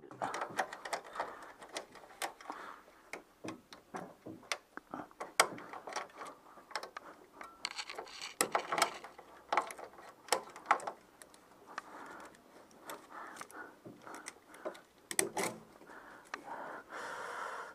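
Irregular metallic clicks and clinks of tools and parts being handled, with a few short scraping rustles.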